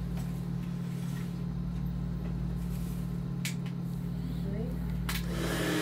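Steady low electrical hum with a couple of sharp clicks, then, near the end, a handheld hair blower (hot-air brush) switched on and running with a steady rush of air.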